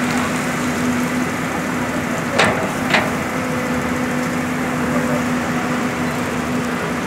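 Hydraulic excavator diesel engines running steadily with a constant hum. About two and a half seconds in there are two sharp knocks half a second apart.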